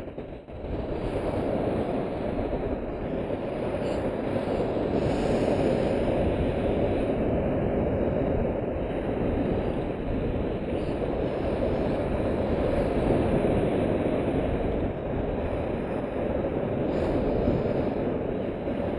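Surf breaking and foam washing around the camera at the waterline: a steady, low rushing roar of waves close by.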